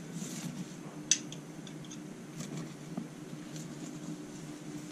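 Ghee being spread over a paratha cooking on a hot tawa with a steel spoon: faint sizzling and light scraping, with one sharp click of the spoon against the pan about a second in, over a steady low hum.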